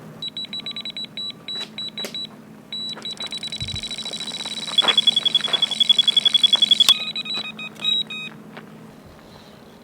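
Electronic carp bite alarm sounding a run: broken beeps quicken into a fast, continuous screaming tone as line is pulled off by a taking fish, with a second, slightly lower tone joining. It cuts off abruptly, followed by a few last beeps.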